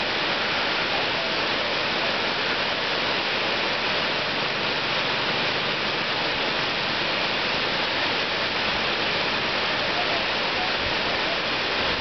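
River water pouring over a regulator weir's crest and running down its sloping concrete face: a steady rushing noise.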